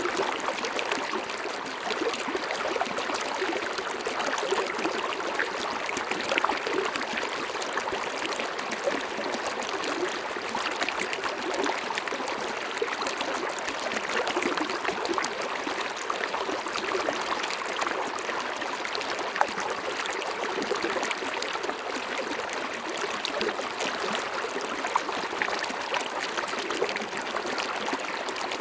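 Flowing river water making a steady, even rush.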